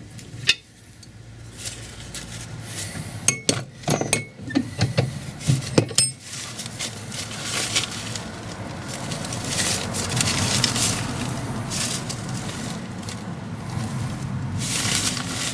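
Sharp metallic clinks of steel washers and a spanner, then a steady rasping as the nut is wound down to draw a new, longer wheel stud into an MGA rear hub.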